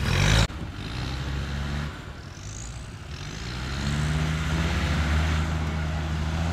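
Engine of an off-road 4x4 working under load in deep mud. A louder passage cuts off abruptly about half a second in; the engine's pitch then rises from about halfway as it revs up, and it holds there.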